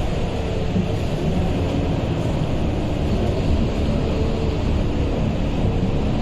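Scania K230UB Euro V city bus running, a steady rumble with short whining tones that come and go and shift in pitch.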